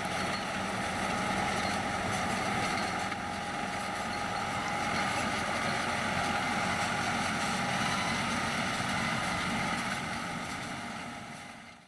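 Four-cylinder diesel engine of a John Deere 6130R tractor running steadily under load while pulling a six-row maize planter, with a steady hum over it; it fades out near the end.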